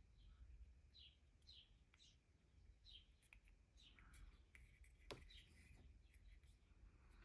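Near silence: faint small clicks of hard plastic model-kit parts being handled and pressed together, with faint short high chirps repeating every second or so.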